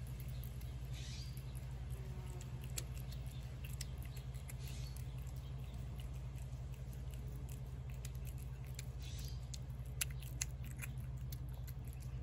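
A cat eating wet pâté off a plate: irregular soft chewing with small wet clicks, over a steady low hum.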